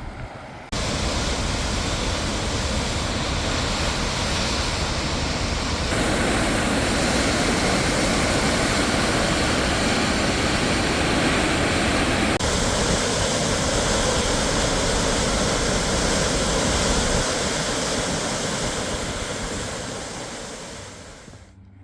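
Numa Falls, a waterfall, rushing steadily with loud, even water noise; the sound shifts abruptly twice and fades away near the end.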